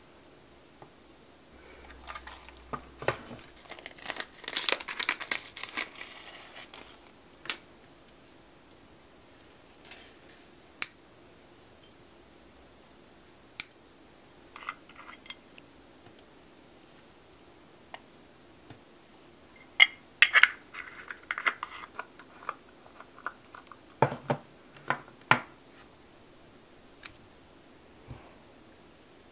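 Tweezers clicking against a plastic rhinestone storage case and small metal nail charms, with a stretch of crinkly rustling a few seconds in. Later come sharp snips from nail clippers cutting a fine gold chain, among scattered small clicks.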